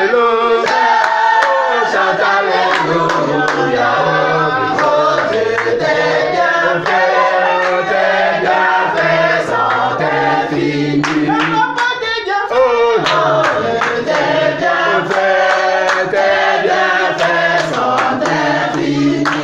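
A group of men and women singing a song together, with hand clapping throughout.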